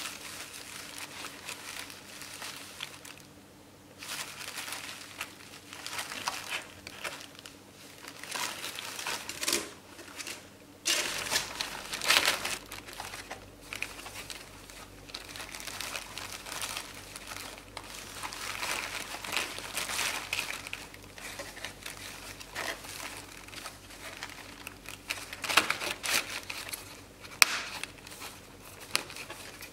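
Plastic bubble wrap crinkling and rustling irregularly as a ferret burrows and wriggles in it inside a cardboard box, with a few sharp clicks near the end.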